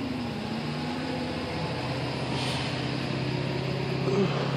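A steady low mechanical hum with a constant low tone, like an idling vehicle or engine. A brief higher tone falls away about four seconds in.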